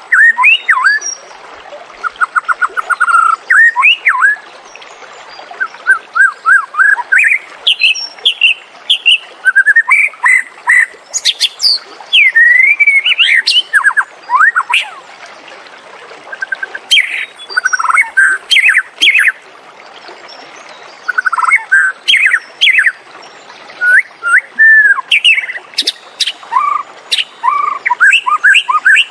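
White-rumped shama singing: a long run of varied, clear whistled phrases, with quick trills of repeated notes and notes that slide up and down, coming in bursts with brief pauses between them.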